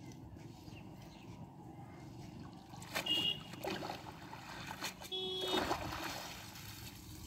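Water splashing and dripping as a cast net is hauled up out of a pond by hand, in a few short bursts starting about three seconds in.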